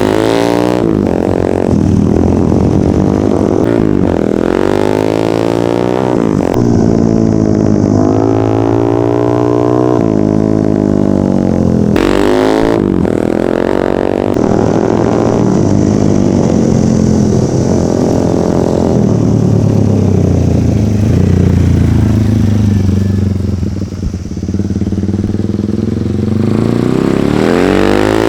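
A 200cc off-road motorcycle engine being ridden hard, its pitch climbing and dropping every couple of seconds as the throttle opens and closes through the gears.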